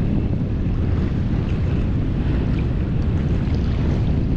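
Steady wind buffeting the microphone, a low rumble, over choppy sea with small waves splashing.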